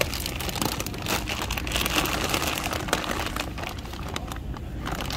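Plastic candy bags (M&M's and Maltesers) crinkling and rustling as they are handled and one is lifted off the shelf, in many quick crackles over a steady low hum.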